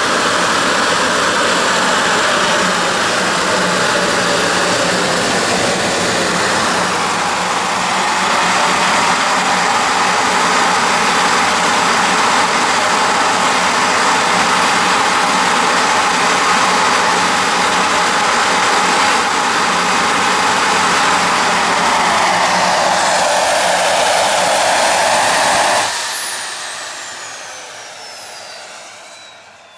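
Homemade turbojet engine built around a turbocharger running steadily at full noise, with a high whine over a loud rushing sound. About 26 s in it is shut down: the rushing noise cuts off suddenly and the turbine whine falls steadily in pitch as it spools down.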